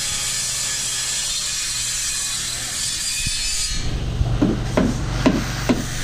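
Power saw cutting a phenolic plywood formwork board, a steady high-pitched cutting noise. About four seconds in it gives way to a series of sharp knocks and taps.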